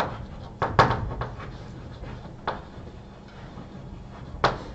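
A handful of sharp knocks and clicks, about five, spaced irregularly, the loudest just before a second in and another near the end, over a steady low room hum.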